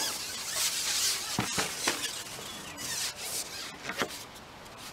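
Sections of a Middy M2 carbon fishing pole being slid back and pulled apart at a joint: a rasping rub of pole on pole, broken by a few sharp clicks, the last about four seconds in.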